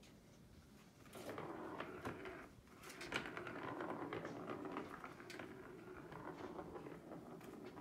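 Plastic balls rolling and rattling around a circular plastic cat-toy track as a kitten bats them, with many small clicks as they knock along the track. The rattling starts about a second in and is loudest around three seconds in.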